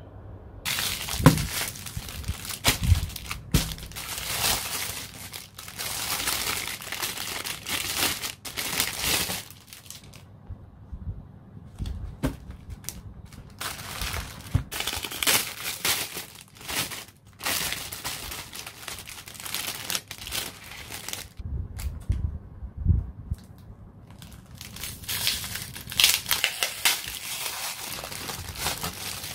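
Product packaging crinkling and rustling as items are unwrapped and handled, in irregular bursts with a couple of short pauses and occasional soft knocks.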